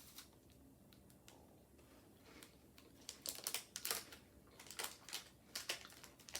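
Crisp crunching of a bite into a chocolate-covered wafer bar and the chewing after it: irregular clusters of sharp crackles starting about three seconds in.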